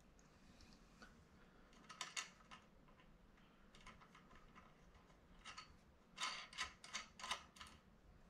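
Faint clicks and light metallic taps of a headlight's bolt and bracket being handled and fitted to the forks by hand, with a pair about two seconds in and a closer run of clicks from about six to seven and a half seconds.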